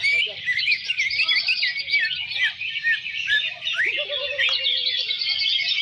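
Dense chorus of many caged greater green leafbirds (cucak ijo) singing over one another at a contest ground: continuous overlapping chirps, trills and whistles, with a lower held note about four seconds in.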